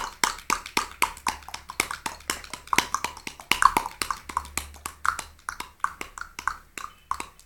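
A person imitating a galloping horse with rapid mouth clicks, a quick clip-clop of hoofbeats, several a second, that thins out near the end.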